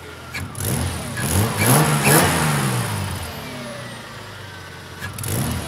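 Freshly assembled BMW M52 turbocharged straight-six running, revving up and back down twice before settling to a steadier idle. A short sharp noise about five seconds in.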